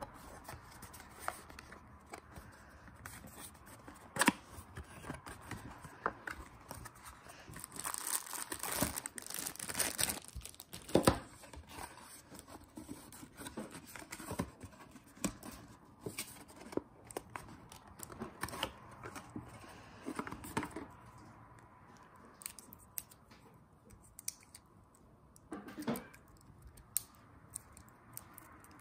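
Cardboard packaging and plastic wrapping being handled and opened: rustling, crinkling and tearing, with scattered sharp clicks. The busiest, loudest rustling comes about a third of the way in.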